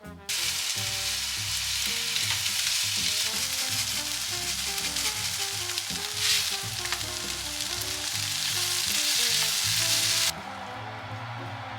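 Food sizzling in a hot frying pan, a steady hiss that cuts in suddenly just after the start and stops abruptly about ten seconds in, with a brief louder flare of sizzling around six seconds.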